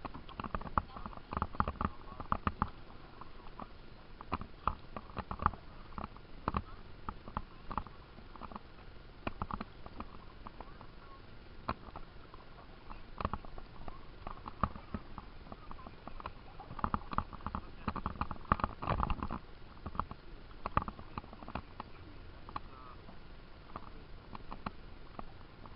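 Canoe paddling: irregular knocks and clicks of the paddle against the canoe, with water splashes, busiest near the start and again about two-thirds of the way in.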